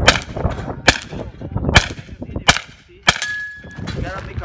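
Handgun shots, five fired a little under a second apart, each with a short echo trailing after it.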